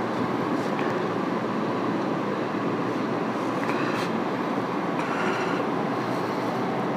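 Steady rushing background noise, like a running fan or cooler close to the microphone, with faint scrapes of a kitchen knife cutting through a mango's skin around the middle.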